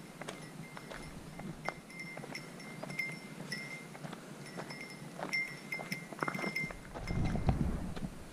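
A small bell jingling over and over at a walking pace, with light footsteps on a dirt trail. A louder low rumble comes in near the end.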